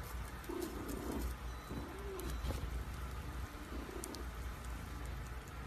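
Sleeping kitten snoring softly: three low, soft sounds about a second and a half apart, one with each breath.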